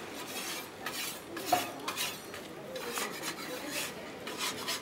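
A utensil scraping and clinking against a round metal griddle as a cheese-topped flatbread is folded over and lifted off, with one sharp clink about a second and a half in.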